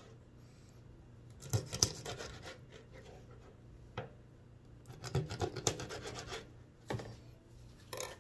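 Kitchen knife cutting through whole round scad (galunggong) on a plastic cutting board: scraping strokes of the blade and knocks on the board, in a few bursts, the busiest about two seconds in and again around five to six seconds in.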